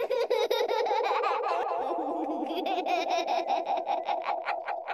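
George Pig's cartoon 'ha ha ha' laugh, digitally layered as many overlapping copies into one continuous chorus of laughter.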